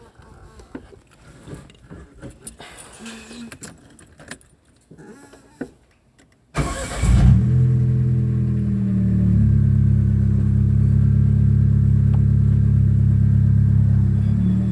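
Keys jangling and small clicks, then about six and a half seconds in a 2001 Chevrolet Celta's four-cylinder engine is cranked by the starter. It catches within a second and settles into a steady idle.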